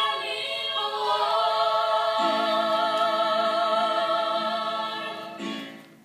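Voices singing a long held note with vibrato; a lower voice joins about two seconds in, and the chord fades out near the end.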